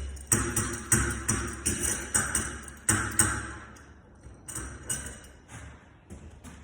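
Hard objects knocking and clattering: a quick run of sharp taps, about three a second, for the first three seconds or so, then a few sparser, fainter ones.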